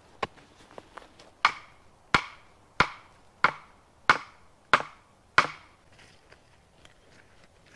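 Dead wood being chopped with a hand tool in steady, evenly spaced blows. After a lighter strike near the start come seven strong blows about two-thirds of a second apart, then only faint taps.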